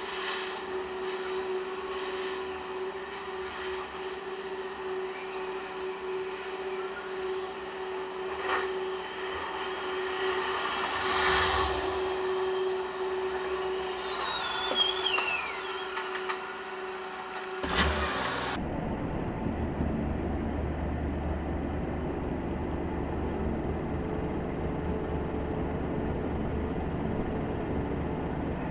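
A heavy vehicle's engine sound over a steady hum, louder as a straddle carrier drives past close alongside midway, with a short falling whine. After about 18 seconds the hum stops suddenly and a steady low engine rumble runs on, like a heavy diesel idling.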